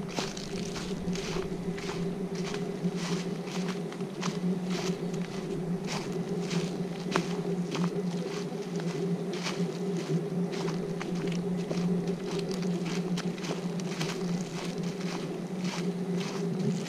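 Footsteps of a hiker on a trail, about two steps a second, over a steady low hum.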